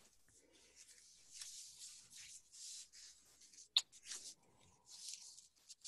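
Faint, irregular rustling hiss with one sharp click about four seconds in.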